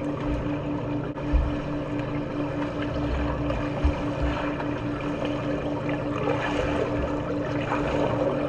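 Water rushing and splashing in a swimming pool, over a low hum that pulses about five times a second.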